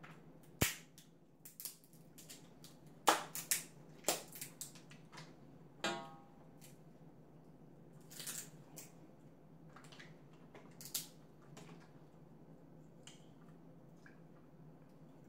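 Crab leg shells cracked and snapped apart by hand: a scattered series of sharp cracks and crunches at irregular intervals, loudest in the first few seconds.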